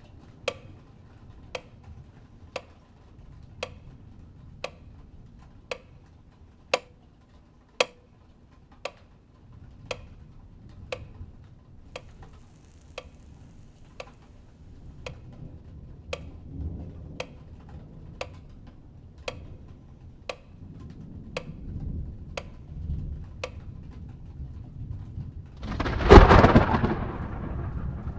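Mechanical metronome ticking steadily at about one tick a second over a low rumble. Near the end the ticking has stopped and a loud rumbling burst swells up and fades.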